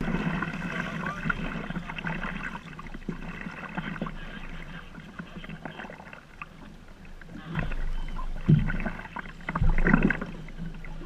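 Water sloshing and splashing around a plastic sea kayak as it is paddled, with a few louder splashes in the second half.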